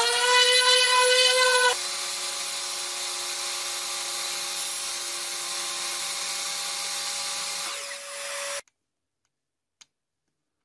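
Random orbital sander whining on a plywood panel, cut off abruptly about two seconds in by a table saw running steadily with a hum and hiss as a thin plywood strip is pushed across it. The saw sound dips near the end and stops suddenly, leaving the last two seconds silent.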